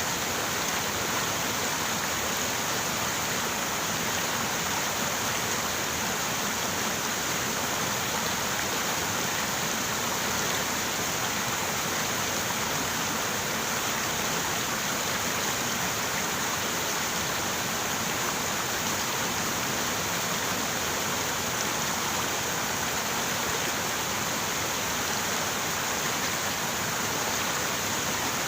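River water running steadily, a continuous even rush.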